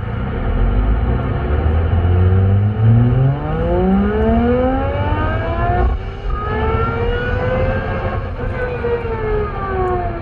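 Chrysler Pacifica Hybrid's electric drive system picked up as interference on the car radio tuned to AM 530: a whine over static hiss that climbs in pitch like an F1 engine revving, breaks about six seconds in, climbs again and falls away near the end.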